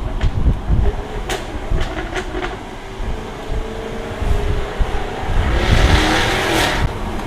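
Jaguar F-Type V8 R's supercharged 5.0-litre V8 under way, with a low rumble throughout. There are several sharp exhaust pops and crackles in the first few seconds. Then the engine note climbs as it pulls, loudest about six seconds in.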